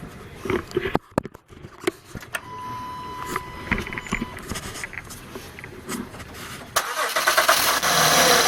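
A few clicks and knocks, then about seven seconds in the 2012 Acura TL's V6 engine cranks, catches and runs loudly. Its pitch settles as it comes down to idle on a freshly fitted serpentine belt and tensioner, with no belt squeal.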